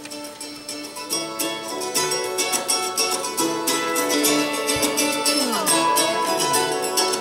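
Instrumental music opening a pop-style worship song, with quick plucked-string notes, gradually getting louder.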